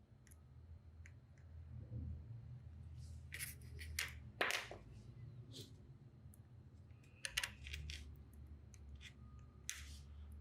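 Scattered light clicks and small metallic taps from tools and tiny components being handled on a soldering workbench, a few sharper ones about 3.5, 4.5, 7.5 and 10 seconds in, over a faint steady low hum.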